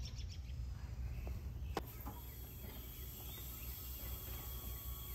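Quiet background noise: a steady low rumble, with a single sharp click a little under two seconds in.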